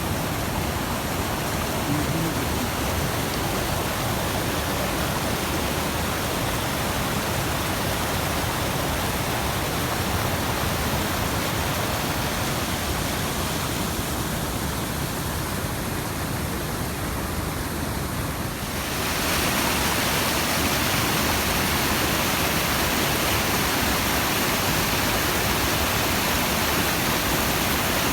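Waterfall and river rapids of the Tulijá river, a steady rush of falling water. About two-thirds of the way through it becomes louder and brighter, then holds steady.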